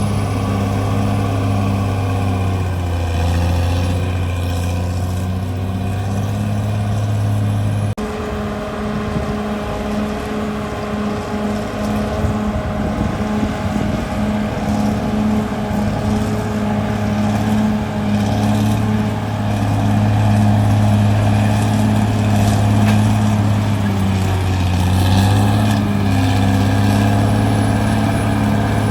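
CAT D6R bulldozer's diesel engine running with a steady low drone, its pitch sagging and recovering twice as it takes load. About eight seconds in the sound changes abruptly to a rougher, crackling stretch before the steady engine drone comes back.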